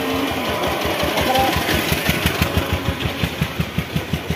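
A small engine running with an even chug of about five or six beats a second, over the hiss of steady rain on a wet road. A steady hum stops just after the start.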